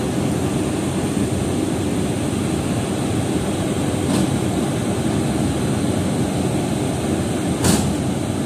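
WAP-5 electric locomotive standing with its pantograph up, its cooling blowers running with a steady low drone. A short hiss of compressed air comes about four seconds in, and a louder one near the end.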